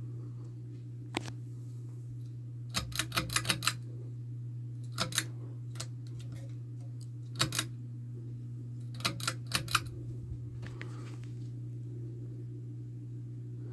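Litex Crown 42-inch ceiling fan running with a steady low motor hum, broken by sharp clicks: one about a second in, then quick runs of several clicks every couple of seconds.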